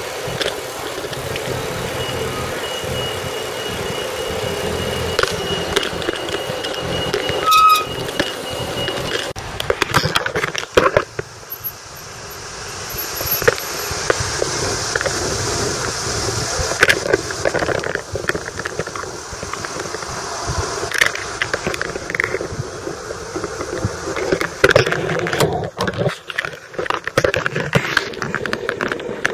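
A bicycle rolling along a town street: a steady rush of tyres and wind, the frame and basket rattling and clicking over the road surface. A thin squeal runs for several seconds in the first third, and the rattling grows thick near the end.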